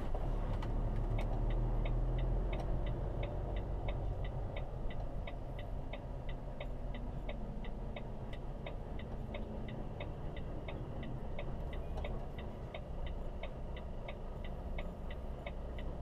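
Indicator ticking in the cab of a Volvo FH truck, evenly at about three ticks a second, starting about a second in, over the low rumble of the truck's diesel engine running at low speed.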